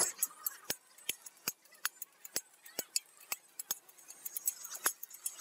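Metal spatula clinking and scraping against a large shallow metal pan as pasta is stir-fried, in sharp, uneven strokes about two a second.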